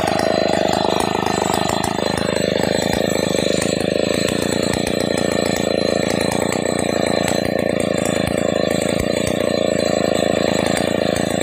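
STIHL two-stroke chainsaw idling steadily with its long bar out of the cut.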